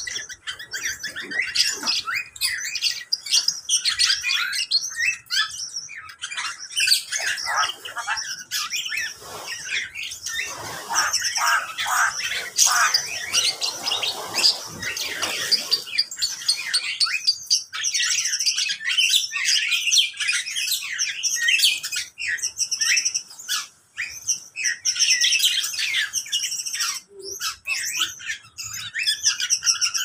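A chorus of many caged birds of mixed kinds in an aviary, chirping and calling over one another without a break, mostly high-pitched, with some lower calls about halfway through.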